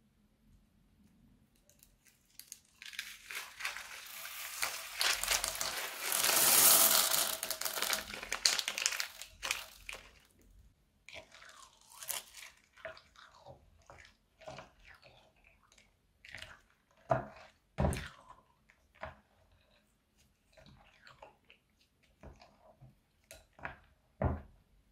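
A plastic piping bag packed with beads and pearls squeezed out onto slime, a dense crackling rush for several seconds; then a spatula stirring the beads into thick slime, with scattered crunchy crackles and clicks.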